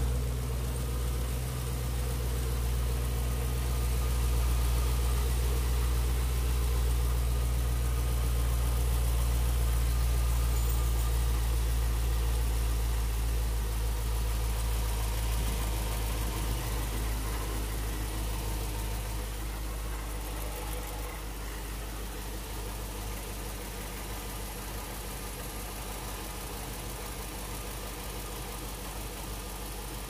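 Supercharged V8 of a 2012 Chevrolet Camaro ZL1 idling steadily with the hood open, heard from the engine bay; it gets a little quieter after about twenty seconds.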